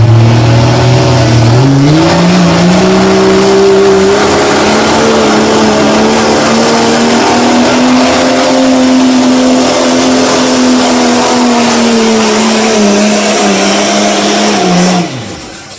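Dodge Ram's Cummins inline-six turbodiesel at full throttle, dragging a pulling sled. The engine note jumps up about two seconds in, climbs slowly under the load, sags a little, then cuts off abruptly near the end. A high whistle rises over the first two seconds.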